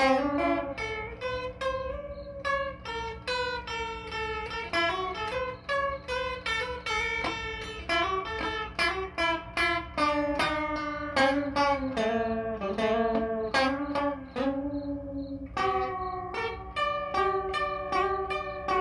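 Electric guitar played through a clone of the Electro-Harmonix Small Clone chorus pedal: a continuous run of picked single notes and arpeggiated phrases, each note ringing briefly into the next. A faint steady low hum sits underneath.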